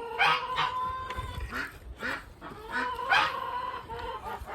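Domestic ducks quacking loudly in unison, short harsh quacks repeating about every half second: their alarm call, which the keeper takes for the flock calling her to come and see what's the matter.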